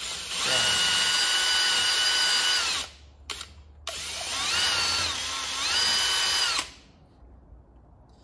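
Electric drill spinning a mixing rod in a cup of catalysed gel coat: a motor whine for about three seconds, a brief blip, then a second run of about three seconds whose pitch dips in the middle and comes back up before it stops.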